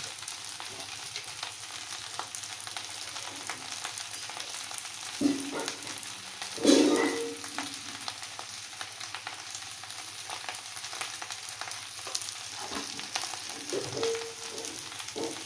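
Soyabean pulao sizzling steadily in a pan, with a spoon scraping and stirring through the rice now and then; the loudest stroke comes about seven seconds in.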